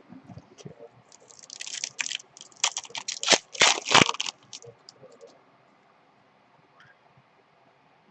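Crinkling and rustling of foil trading-card pack wrappers and cards being handled, with packed crackly strokes from about a second in until past four seconds and a few scattered clicks around them.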